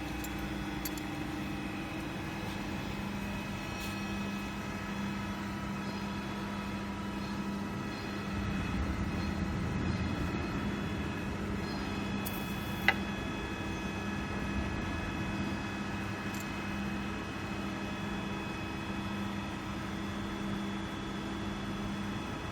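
A CNC servo press brake's hydraulic drive running with a steady hum, swelling somewhat in the middle. One sharp click comes about halfway through.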